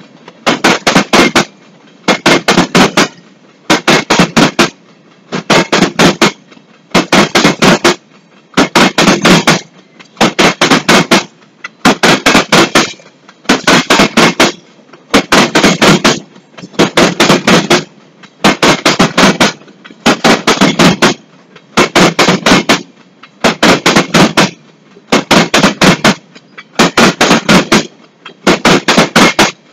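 Loud, rhythmic clickety-clack of a passing empty gravel train's steel wheels over a rail joint: a quick run of about four clacks as the trucks at the coupled ends of two cars cross, repeating roughly every 1.7 s as each car goes by.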